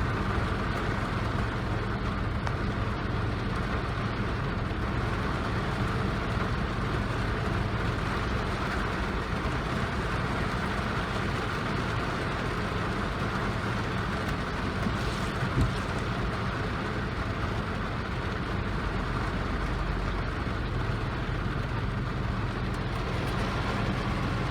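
Steady rain, with a low steady hum running underneath it and one short knock about two-thirds of the way through.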